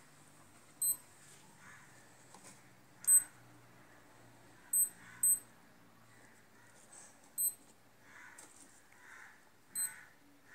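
Digital wristwatch beeping as its buttons are pressed to step through its modes: six short, high beeps at uneven gaps of about half a second to two and a half seconds.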